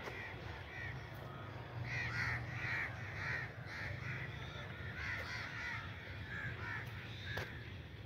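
Crows cawing over and over, short harsh calls coming two or three a second, over a steady low hum.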